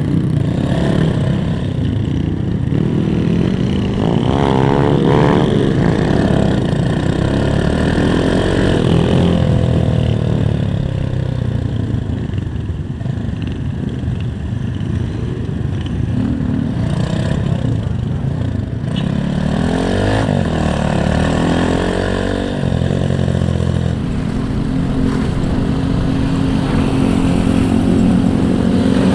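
Small Honda Win motorcycle engines riding off in a group, heard from the rider's own bike, with the engine note rising and falling as the throttle opens and closes, then settling into a steadier run near the end.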